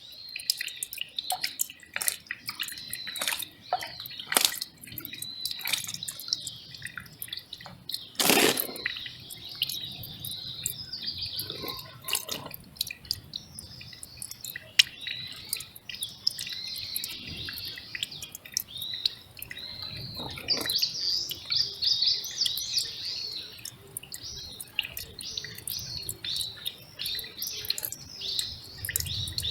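A small mountain stream trickling and dripping over rocks, with small birds chirping repeatedly throughout. There is a brief louder splash about eight seconds in.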